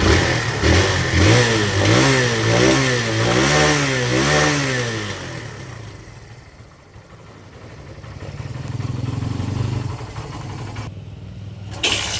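Kawasaki Barako 175's single-cylinder four-stroke engine starting cold at the first try, revved up and down about five times, then settling to a quieter idle. The easy cold start shows the hard-starting fault cured after a carburetor tune, new float valve seat, valve clearance setting and decompression-weight work.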